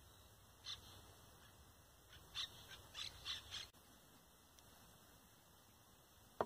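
A bird gives a few short, harsh calls: one about a second in, then a quick run of four between two and four seconds in. A single sharp knock comes at the very end.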